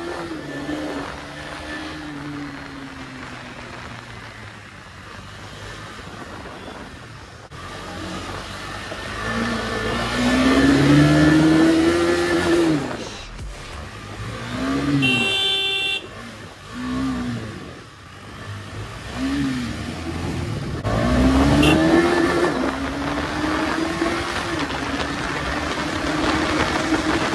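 KTM 250 Duke's single-cylinder engine under way, revving up hard about a third of the way in and again after the middle, with quick rises and drops in revs in between. A vehicle horn sounds for about a second near the middle.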